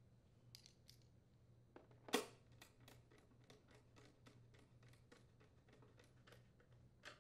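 Faint clicks of a 5/16-inch nut driver threading and tightening a bolt into a small engine's blower housing cover. There is one louder clack about two seconds in, then light ticks about twice a second as the bolt is turned.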